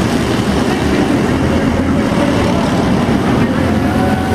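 Several small arena race cars' engines running together around the track, a steady loud mechanical din inside the arena hall. One engine's pitch rises briefly near the end.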